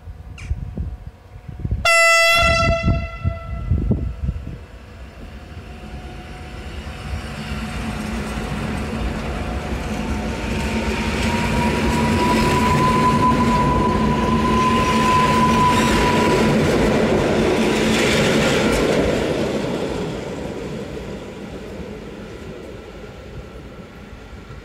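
EN57ALd electric multiple unit giving one short horn blast, then pulling out. Its running noise swells as it passes close by, with a high whine at its loudest, and fades as it draws away.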